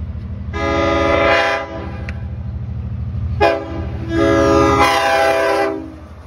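Long Island Rail Road diesel locomotive's air horn sounding for a grade crossing: a long blast, a short toot, then another long blast, over the low rumble of the approaching train.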